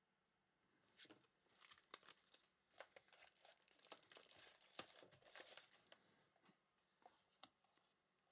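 Faint crinkling and rustling of plastic wrapping, with light clicks, as a trading card in a clear plastic holder is handled and unwrapped; the crinkling runs through the first part and thins to a few single ticks near the end.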